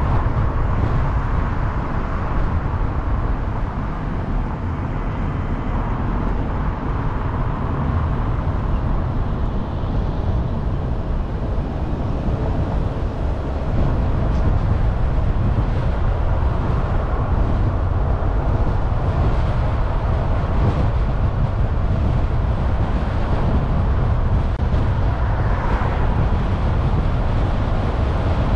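Steady rumble of a car driving on a road, mostly low tyre and wind noise without distinct events. It gets a little louder about halfway through.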